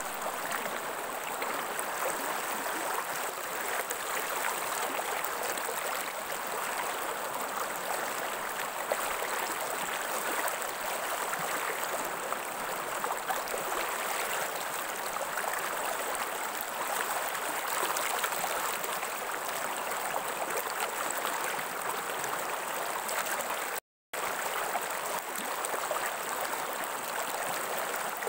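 Stream water running steadily, an even rushing with no pauses except a momentary dropout about three-quarters of the way through.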